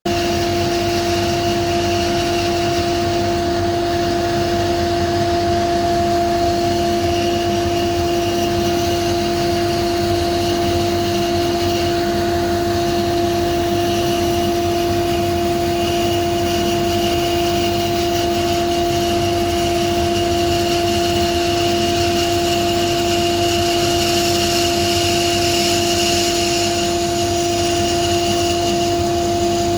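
Charnwood Cobra C14BX 14-inch bandsaw, with its 1800 W induction motor, running and making an 11-inch-deep cut through oak: a steady two-note hum with a hiss above it that does not change.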